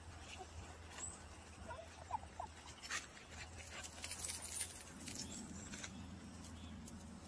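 Dog whimpering faintly, two or three short whines about two seconds in, followed by faint scuffling and clicks of paws on gravel.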